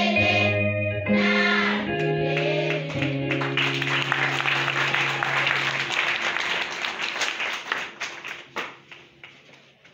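A children's choir finishes its song on long held notes over a steady low accompaniment. From about three seconds in, the audience applauds, and the clapping fades out near the end.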